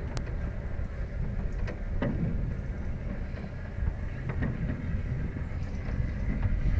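Moving cable car gondola riding along its cable: a steady low rumble with a faint hum and a few light clicks.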